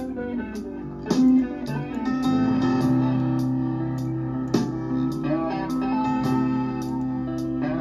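Music led by plucked guitar, with held notes and sharp picked attacks.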